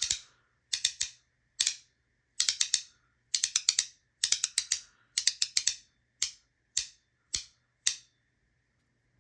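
Crystallized titanium fidget clicking sharply, in quick runs of two to five clicks, then single clicks about half a second apart near the end.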